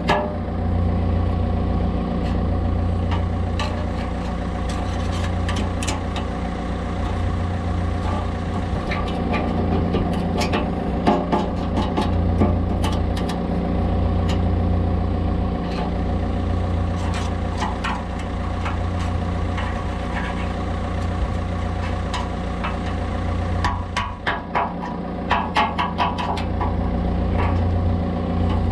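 John Deere 110's diesel engine idling steadily, with sharp clicks and knocks now and then from the bucket teeth and pins being worked, a quick run of them near the end.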